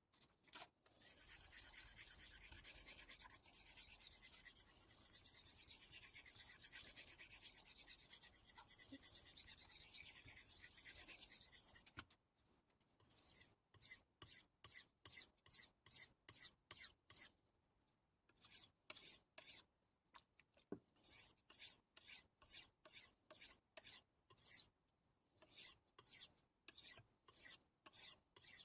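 A steel knife blade being sharpened on a wet whetstone. It starts with about ten seconds of continuous scraping. Then come separate back-and-forth strokes of the edge on the stone, about two a second, pausing briefly twice.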